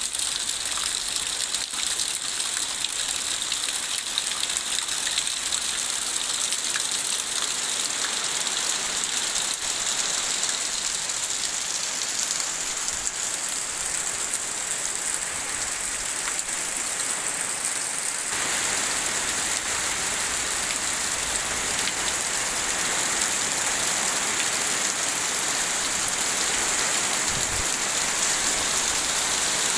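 Rain falling steadily as a dense, even hiss. About 18 seconds in, the sound changes abruptly and becomes fuller and deeper.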